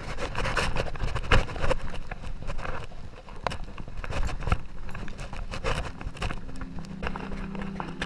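Gravel bike rolling down a rocky dirt road: tyres crunching over stones and the bike rattling with quick irregular knocks over a low rumble. About seven seconds in, a steady low hum joins.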